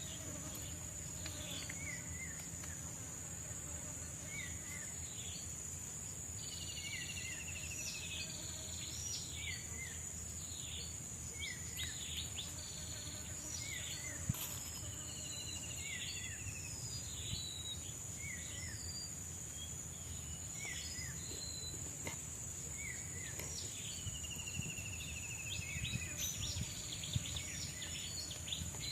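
Forest ambience: a steady high-pitched insect drone throughout, with many short bird chirps repeating every second or two and a few longer descending whistled calls.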